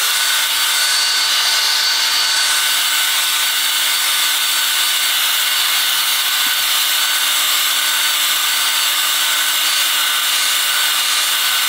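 Cordless drill spinning a flexible brush hone inside an engine cylinder bore, honing the cylinder wall. A steady drill-motor whine at constant pitch sits over the hissing scrub of the abrasive brush against the bore.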